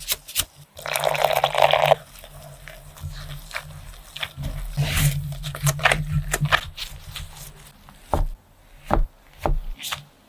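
Gloved hand squeezing and kneading crumbly purple mash and starch into a dough in a glass bowl: irregular scraping and crunching of the dry starch, with a dense stretch of crunching about a second in and scattered short squishes and scrapes after.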